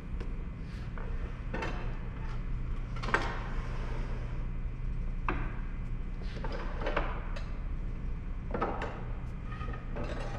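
Wooden workpieces and a miter gauge being handled on a saw table: short knocks and sliding scrapes every second or two, over a steady low hum.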